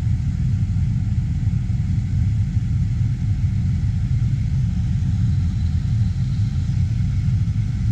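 Farm tractor running steadily at working speed: an even low rumble with no change in pitch or level.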